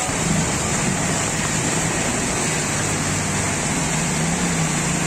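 Steady hiss of heavy rain and rushing floodwater on a street, with a low motor hum coming in during the second half.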